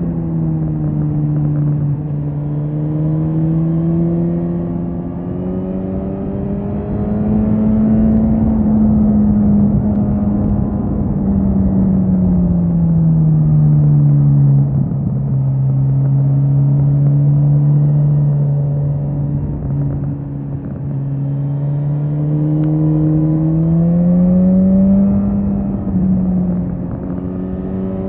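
Suzuki GSX-S 1000 inline-four engine running under way. Its note climbs slowly and then drops away about halfway through, holds low and steady for several seconds, and climbs again near the end, over a steady rush of wind noise.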